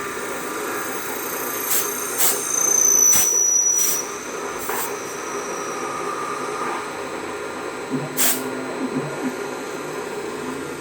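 CNC lathe running and cutting metal: a steady machine hum, with a thin high-pitched whine from the cut that slowly sinks in pitch around the second to fifth second. A few sharp clicks are scattered through it.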